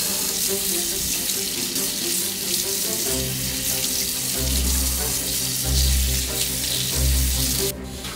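Kitchen tap running into a stainless steel sink, the stream splashing over a squid as it is rubbed clean by hand. The water sound cuts off suddenly near the end. Background music with a pulsing bass line plays underneath from about three seconds in.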